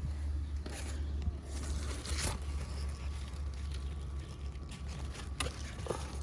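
Scattered rustling, scraping and tearing of squash leaves and stems being handled during harvesting, with a few short sharp snaps, over a steady low rumble.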